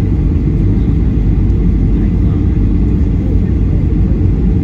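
Steady low rumble inside the cabin of a Boeing 737-800 on its approach to land: engine and airflow noise.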